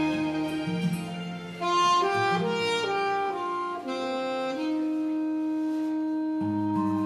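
Saxophone playing a slow melody over a recorded karaoke backing track: a short phrase of separate notes, then one long held note from a little past the middle.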